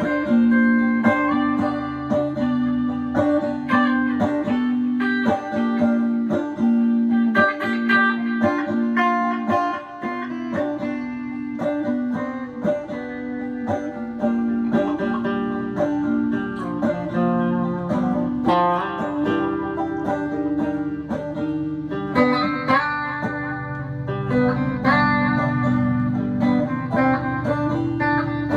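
Electric guitar (a Stratocaster) and electrified banjo playing an instrumental piece together: picked higher notes over a steady pulse of repeated low notes.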